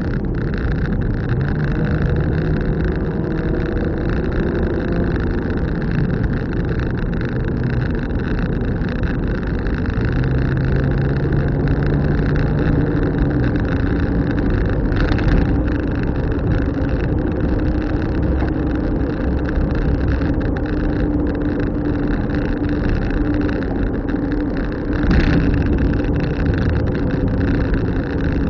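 Car interior noise while driving: steady road and tyre rumble with the engine note shifting in pitch a few times as speed changes.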